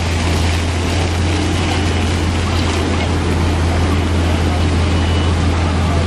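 Splash-pad fountain jets hissing as they spray onto wet pavement, over a steady low hum.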